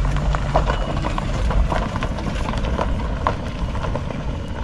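An old SUV's engine runs with a steady low rumble as it pulls away down a dirt track, with scattered small crunches and clicks of gravel throughout.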